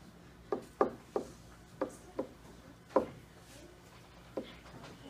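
Pen tapping against an interactive whiteboard as numbers are written on it: about seven sharp, irregularly spaced taps.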